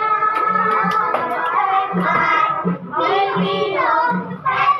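Children's voices singing an upbeat song over a steady beat.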